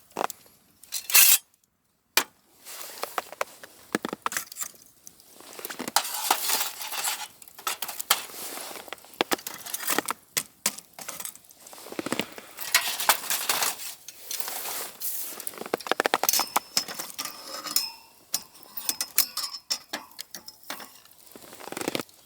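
Irregular clinks, taps and scrapes of camp cookware and utensils being handled, with rustling in between.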